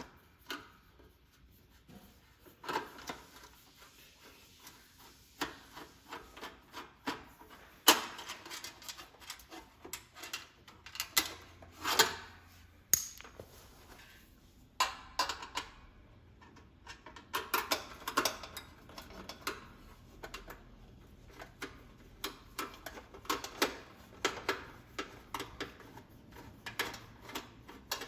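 Irregular clicks, knocks and scraping from the sheet-metal parts of a metal space heater being handled and worked on by hand, with a few louder knocks and quick runs of small clicks.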